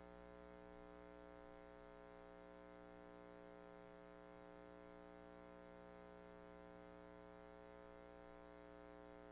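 Near silence: only a faint, steady electrical hum, with no other sound.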